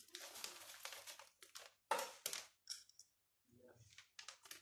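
Plastic zip-lock bag crinkling and rustling as it is handled, with pork pieces in a breadcrumb and spice coating inside. There is a rustle over the first second or so, then a string of short crinkles.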